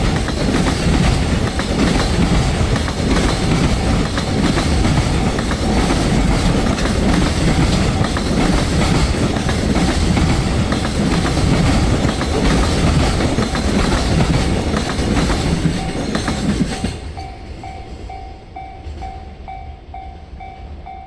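Freight train container wagons rolling past at speed, wheels clattering over the rail joints. The noise falls away sharply about 17 seconds in as the last wagon clears. After that, a level-crossing warning bell is left ringing in a steady two-tone ding-ding, about two strikes a second.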